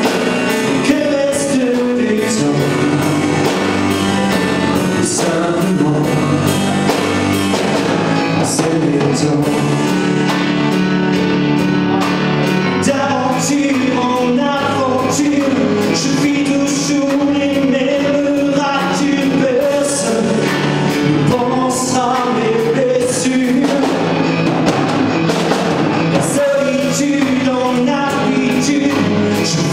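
Live band music: electronic keyboard and a drum kit with cymbals, with a voice singing over them.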